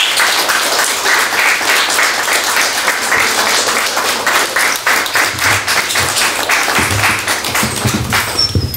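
A small audience clapping in a room, dense and even, dying away just before the end.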